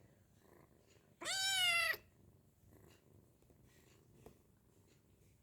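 A kitten meows once, a loud, high call of under a second about a second in.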